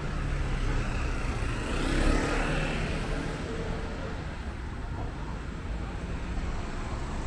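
City street traffic: a steady low rumble of road vehicles, with one vehicle passing close by, loudest about two seconds in.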